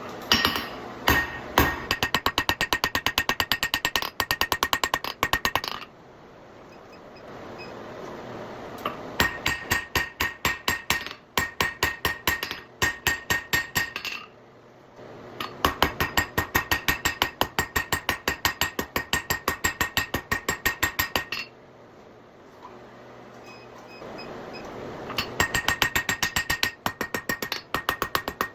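Blacksmith's hammer striking hot 3/8-inch round steel bar on an anvil, squaring it and drawing a taper. The blows come in fast runs of about four or five a second, with a ringing tone, and the runs stop three times for a few seconds, leaving a low steady hum.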